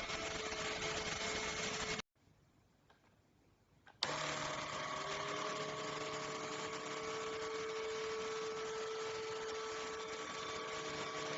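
ENOLUX K7 PRO cordless vacuum cleaner's motor running with a steady whine. The sound cuts out abruptly about two seconds in. It returns about two seconds later with a click, and the whine rises slightly before holding steady.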